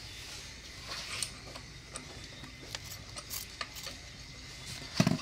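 Scattered light clicks and rattles of hard plastic and metal parts being handled around a brush-cutter engine's carburettor and air-filter housing, with a louder knock near the end. The engine is not running.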